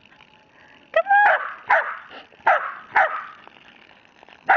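A dog barking: a quick run of about five barks starting about a second in, then one more bark near the end.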